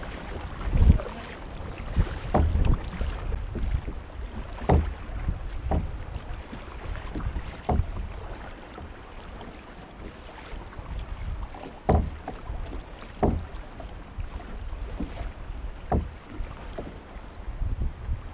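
Kayak being paddled on open sea: irregular paddle strokes splashing and knocking, about one every second or two, over a steady hiss of water.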